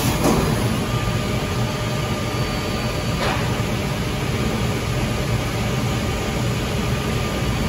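Biesse Skill 1536 GFT CNC router machining a panel, its spindle cutting through the board: a steady mechanical noise with a low hum underneath.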